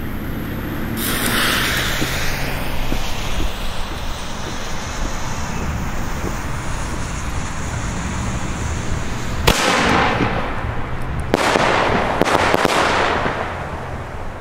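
Firework bomb tube (Pyroland Giga Geil) going off: a hissing stretch about a second in, then two sharp launch bangs about two seconds apart near the end, each followed by a couple of seconds of loud rushing, hissing effect.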